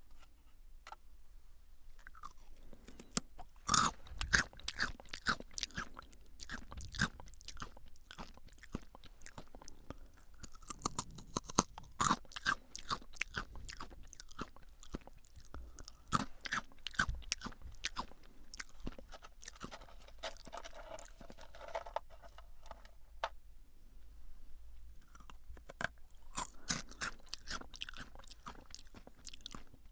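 Crisp, lightly salted potato sticks (Calbee Jagabee) being bitten and chewed close to the microphone, in runs of quick crunches with pauses between them.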